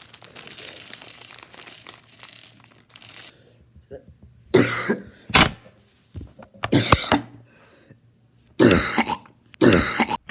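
Packaging rustling as a building-brick set is opened, then a person coughing about five times in quick succession over the second half.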